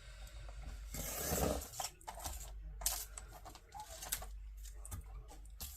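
Photo prints being trimmed and handled at a craft desk: a few short cutting strokes through paper with light clicks and rustles.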